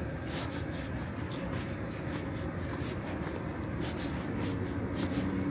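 Footsteps of someone walking at a steady pace, with clothing rustling, over a steady background hum.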